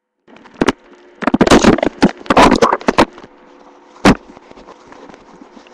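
A hungry person's stomach growling, loud and close to the microphone: a short burst, two longer growls of about a second each, then another short burst.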